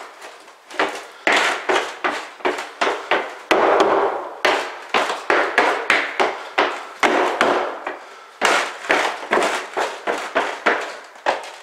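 Work boots stepping and shifting on an acrylic shower pan, giving a quick irregular run of sharp knocks, about two a second, as the pan is pressed down into its mortar bed.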